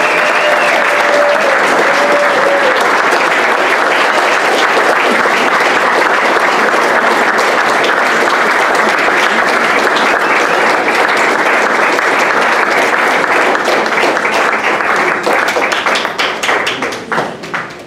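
Audience applauding steadily, thinning to scattered individual claps near the end.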